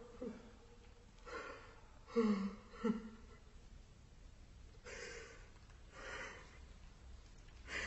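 A voice actor's short pained gasps and groans, two of them about two and three seconds in, followed by a couple of breathy exhalations: the dying sounds of a character who has just run himself through with a sword.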